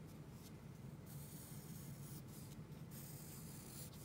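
Faint scratching of a wooden graphite pencil drawn across paper in several strokes, with short breaks between them, over a steady low hum.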